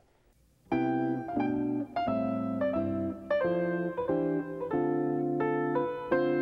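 Piano music, a run of held notes and chords that changes every half second or so, starting about a second in after a short silence.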